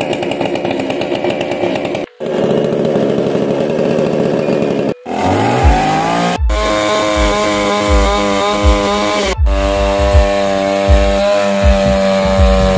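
Two-stroke MIR 8500 gasoline chainsaw running at high revs and cutting logs, in short spliced clips that break off abruptly about two, five, six and a half and nine and a half seconds in. Just after the five-second break the engine revs up from low to a steady high pitch.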